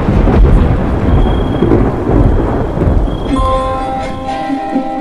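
Thunder rumbling with rain falling. About three seconds in, plucked guitar notes begin over the fading storm.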